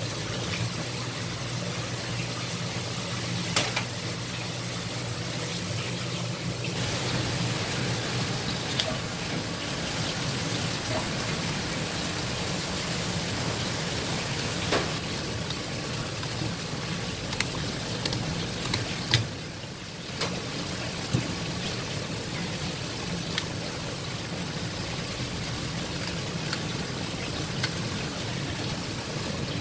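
Tap water running steadily from a faucet spray head into a plastic tub, a constant hiss, over a steady low machine hum. A few sharp knocks or clicks stand out, one a few seconds in and one about two-thirds of the way through.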